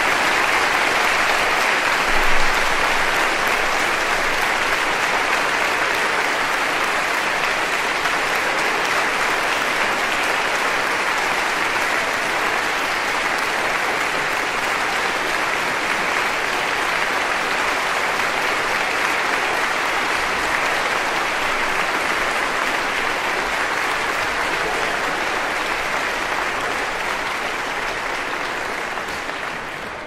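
A large crowd clapping steadily, a dense continuous patter of many hands that eases off slightly near the end.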